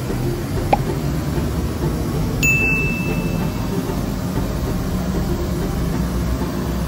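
A steady low rumble of room noise, with a sharp click about three-quarters of a second in and a short high beep about two and a half seconds in.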